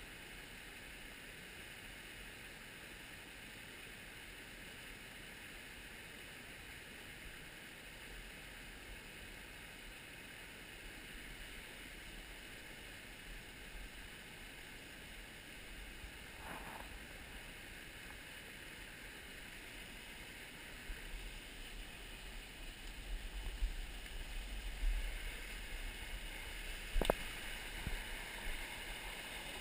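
Small mountain stream running over rocks: a steady rush of flowing water. About two-thirds of the way through, low rumbling bumps join it, with a sharp click near the end.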